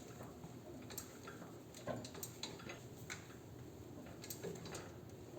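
Faint, irregular light clicks and taps, about a dozen, from metal parts and tools being handled while the rear wheel is worked loose.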